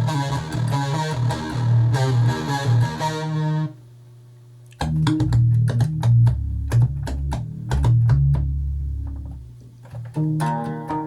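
Novation XioSynth synthesizer playing a plucked, guitar-like sequenced pattern over a bass line. About four seconds in it drops to a low held tone, then comes back with sharp clicking percussion and bass notes, which fade out before a new pattern starts near the end.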